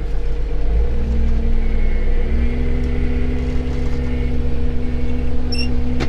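Engine of a farm spray rig heard from inside its cab as it moves off: the engine note steps up in pitch about a second in and again about two and a half seconds in, then holds steady.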